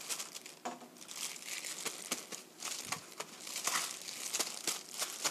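Paper towel and disposable plastic gloves crinkling and rustling as raw chicken pieces are patted dry, with many light, irregular taps.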